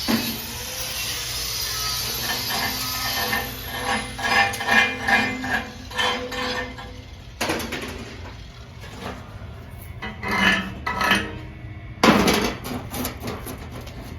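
Hammer knocking on a welded steel plate in clusters of quick, ringing metal strikes, after a few seconds of steady hiss at the start.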